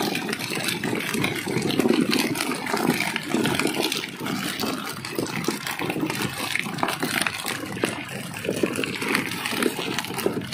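Water splashing and sloshing, an uneven churning without any steady pitch.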